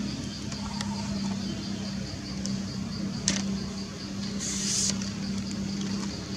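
Outdoor forest ambience: a steady low hum and a high, pulsing trill of insects, with a sharp click about three seconds in and a brief high hiss a little after.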